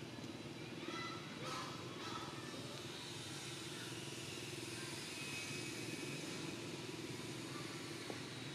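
A steady low engine-like hum, with a few faint short high chirps about one to two seconds in.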